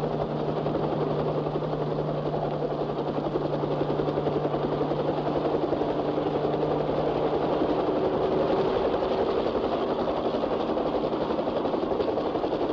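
Kaman HTK-1K radio-controlled drone helicopter running steadily close by, engine and rotors at flying power. The low hum in the sound fades about halfway through.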